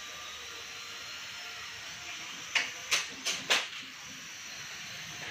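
Small toy quadcopter's propellers buzzing with a steady high whine and hiss, with four sharp knocks within about a second, a little past halfway.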